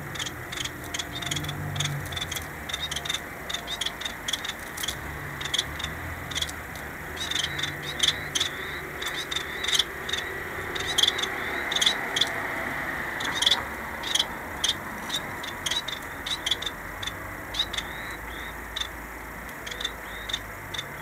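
Caged society finches (Bengalese finches) giving short, quick chirping calls, many in irregular succession, some clustered in quick runs.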